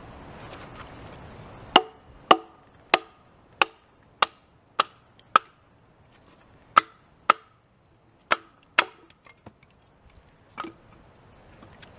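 A large fixed-blade survival knife chopping into wood: about a dozen sharp strikes, roughly two a second with a couple of short pauses, each with a brief ringing tone.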